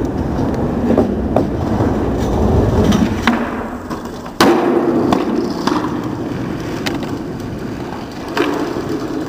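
Skateboard wheels rolling over a concrete floor with a steady low rumble, broken by a loud board clack about four and a half seconds in and a few lighter clicks.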